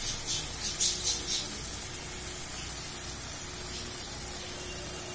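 Onion and spice masala frying in oil in a steel kadai: a steady low sizzle, with a few brief sharper hissing spurts in the first second and a half.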